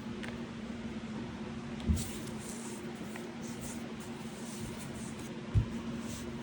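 Steady low hum with two soft thumps, one about two seconds in and one near the end, and faint light ticks and rustling between them: handling noise.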